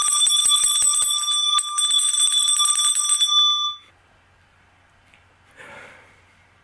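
A small copper-coloured metal handbell is shaken rapidly, its clapper striking many times in quick succession so that it rings in several high, steady tones. The ringing stops and dies away about three and a half seconds in.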